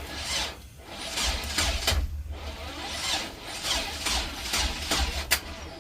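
Chevrolet Express van's starter cranking the engine in uneven pulses without it firing: a crank-no-start caused by a faulty distributor.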